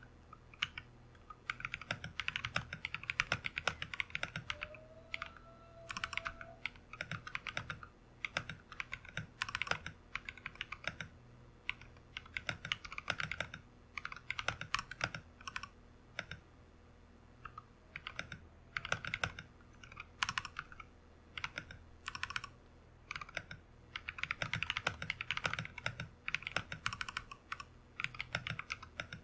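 Royal Kludge RK100 mechanical keyboard fitted with lubed and filmed Glorious Panda tactile switches, clipped and lubed stabilizers, case foam and tape mod, being typed on fast. The typing comes in bursts of a few seconds with short pauses between them.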